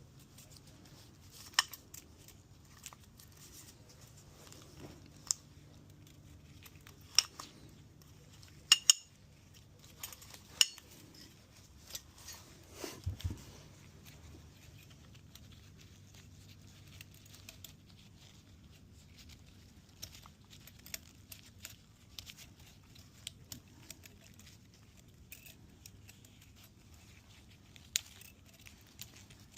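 Scattered sharp metallic clicks and clinks of tools and engine parts being handled during piston installation, most of them in the first half, over a low steady hum.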